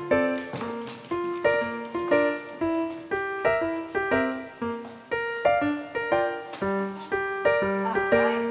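Piano music: a steady, quick run of single notes and chords, several a second, each struck and dying away.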